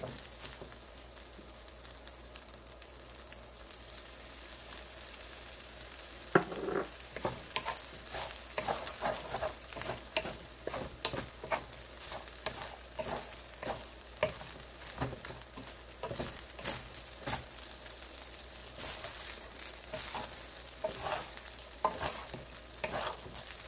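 Fried rice sizzling in a pan, with a spatula stirring, scraping and tapping against the pan over and over from about six seconds in.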